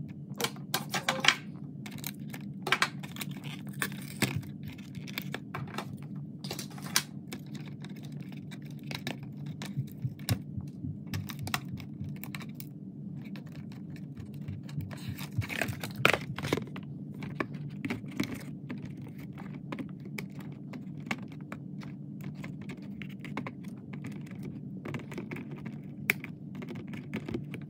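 End-cutting nippers snipping small plastic packaging ties and tabs: a scatter of sharp clicks and snaps with some plastic and cardboard rustling, over a steady low hum.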